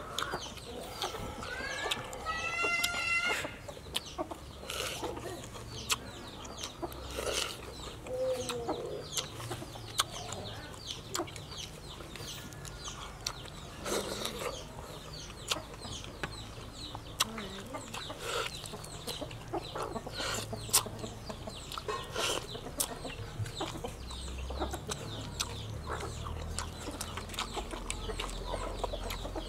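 Chickens clucking, with a rising call about two to three seconds in and another shorter call near eight seconds, over many short sharp clicks throughout.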